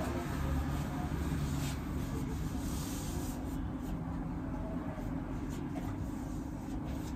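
Paper towel rubbing along a window frame, a dry wiping hiss for the first three seconds or so that then fades. A steady low hum runs underneath.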